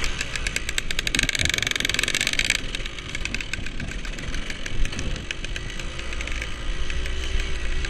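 Off-road dirt bike engine running under throttle, a rapid buzzing beat that is loudest from about one second in and eases off about two and a half seconds in.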